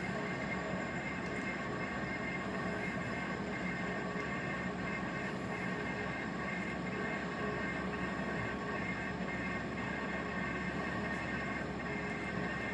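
EENOOR 6,000 BTU portable air conditioner running steadily, its compressor and fan giving a continuous whir with a low hum and a few faint steady high tones.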